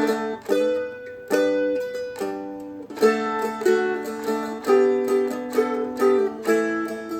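Seagull Merlin M4, a four-string acoustic strumstick, strummed slowly through D, G and A chord changes, each strum ringing out before the next.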